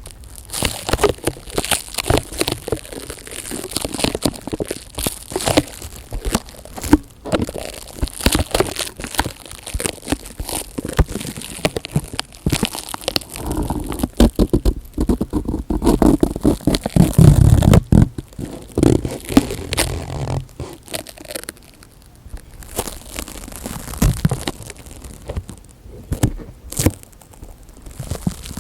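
ASMR handling sounds close to a microphone: dense crinkling and crackling with sharp clicks, turning into heavier, thumpy rubbing from about halfway through, then back to lighter crackles.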